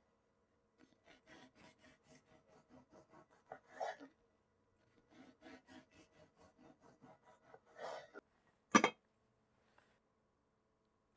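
A knife sawing through a soft white loaf on a wooden cutting board: two runs of quick rasping strokes, about four or five a second, each ending in a louder stroke as the blade cuts through onto the board. Then one sharp knock a little before the end.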